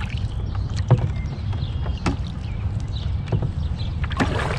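A few sharp knocks on a kayak as a hooked fish is fought on a spinning rod, roughly one a second, over a steady low rumble of wind on the microphone and water against the hull.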